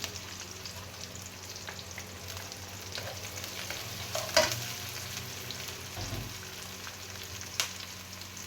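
Sliced onion and garlic sizzling in hot oil in a pan as they are sautéed, with a utensil stirring and knocking against the pan; the sharpest knock comes about four seconds in.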